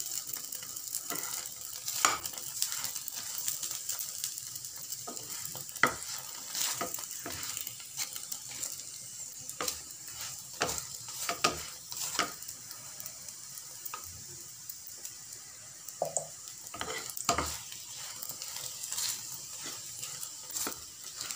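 Stuffed keema flatbread sizzling in a little oil in a nonstick frying pan, with a steady hiss, while a spatula presses on it and knocks against the pan in frequent short taps.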